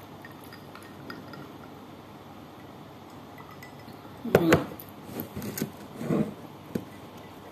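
A ribbed drinking glass of iced cola set down on the table with a sharp clink about four seconds in, followed by a few softer knocks and taps.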